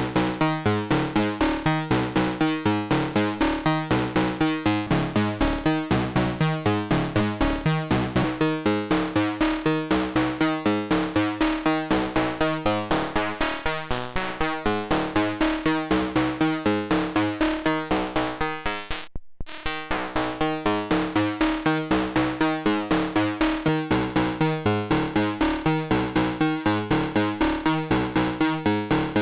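Analog synthesizer from a CubuSynth Engine dual 3340-chip VCO module playing a fast sequence of short repeating notes over a steady held drone tone. The sound cuts out completely for a moment about two-thirds of the way in, then resumes.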